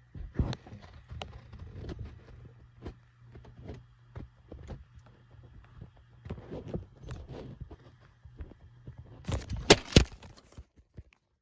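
Hands handling a small phone and its parts on a work surface: scattered sharp clicks and taps. A louder clatter of several knocks comes near the end.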